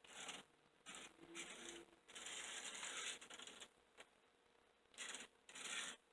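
HO scale model locomotive's small electric motor and gears running in short, stop-start spurts. There are five bursts of mechanical gear noise, the longest lasting about a second and a half, as power is applied in test runs.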